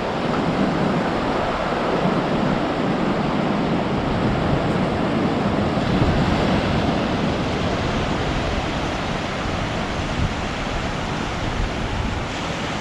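Sea surf washing onto a sandy beach in a steady rush, with wind buffeting the microphone.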